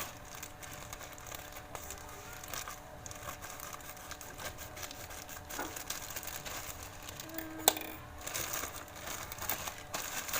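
Plastic packaging crinkling and tearing as a delivery parcel is opened by hand, with one sharp click about eight seconds in.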